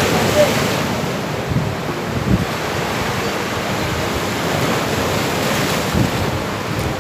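Sea waves breaking and washing against rocks, loudest just at the start, with wind buffeting the microphone in a few low thumps.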